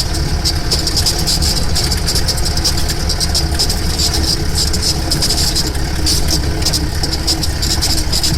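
Jeep engine running steadily while the vehicle rattles and knocks over a rough track.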